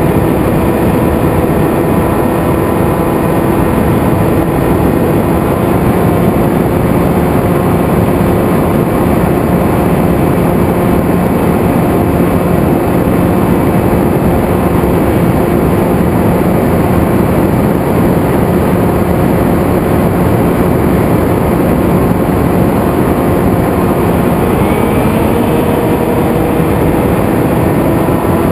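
Electric motor and pusher propeller of a Zephyr FPV flying wing running with a steady drone under heavy wind rush over the onboard camera's microphone. Its pitch rises about three-quarters of the way through.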